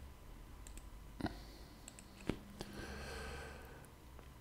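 Computer mouse clicks, two distinct ones about a second apart, with a soft breath near the microphone after the second.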